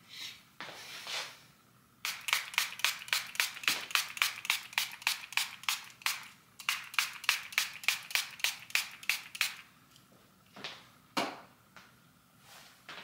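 Hand-pump spray bottle misting water, squeezed in a quick even run of about thirty squirts, roughly four a second.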